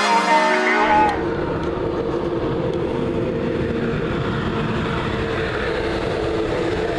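Music ends about a second in, then a DB ICE high-speed train runs past the platform close by: a steady, even rush of rolling and running noise with a faint hum.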